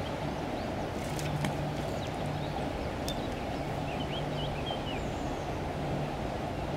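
Steady low outdoor rushing noise with a faint low hum, while a small bird chirps a few times, faintly, about four to five seconds in. There are a few light clicks.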